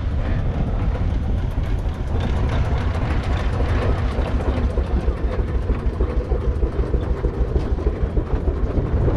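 A heavy engine idling with a steady, quick, even beat, strongest in the low end.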